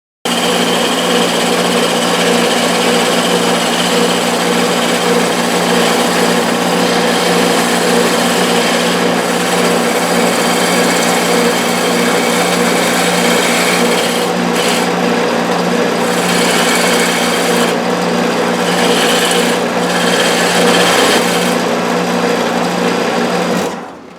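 Wood lathe running with a steady motor hum while a turning tool cuts the spinning wood, giving a dense hiss of cutting. The cutting noise lets up briefly a few times in the second half, and the whole sound drops away near the end.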